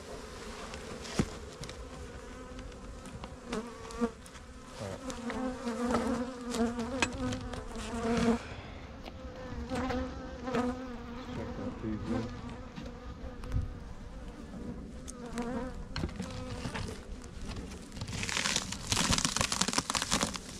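Honey bees buzzing around an open hive, a wavering hum with scattered clicks and knocks. A burst of rustling noise comes near the end.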